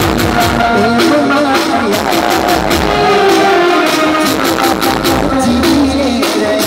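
Loud live Gujarati folk music played through a sound system: a wavering melody over a fast, steady drum beat.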